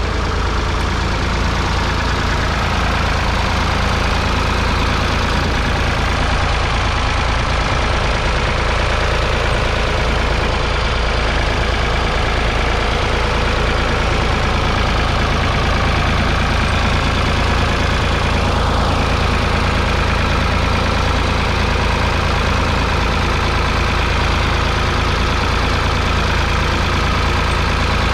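1974 Ford 3000's 2.9-litre three-cylinder diesel engine running steadily under load as the tractor pulls a mounted two-furrow plough through the soil. Loud and even throughout, heavy at the low end.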